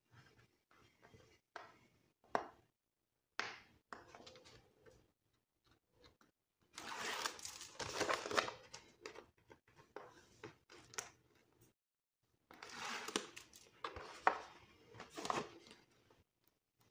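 Paper and plastic craft sheets rustling and crinkling as they are handled, with scattered small taps and clicks. Two longer stretches of rustling come about 7 and 13 seconds in.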